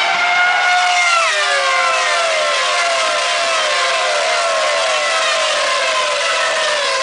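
Pack of 2008 Formula One cars with 2.4-litre V8 engines screaming at high revs. One engine note after another falls in pitch, about twice a second, as the cars run in a close train on the opening lap.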